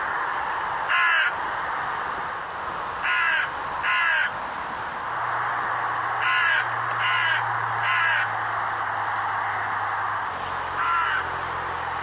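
A crow cawing: seven short, harsh calls at irregular intervals, two of them in quick pairs, over a steady background hiss.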